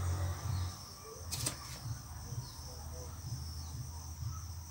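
Steady high chirring of insects in the background, with one sharp snip of pruning shears about a second and a half in.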